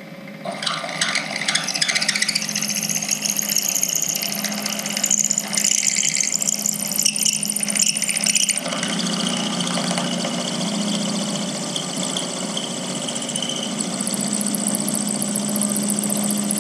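Small milling machine's cutter plunging into a solid aluminium block. The cutting noise starts about half a second in over the steady hum of the spindle motor, and its sound changes about halfway through.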